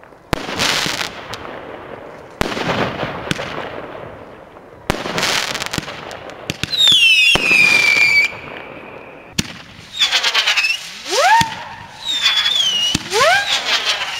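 Fireworks going off: four sharp launch shots a couple of seconds apart, each followed by a hissing, crackling burst. In the middle a loud whistle falls in pitch, and in the last few seconds several whistles rise quickly one after another.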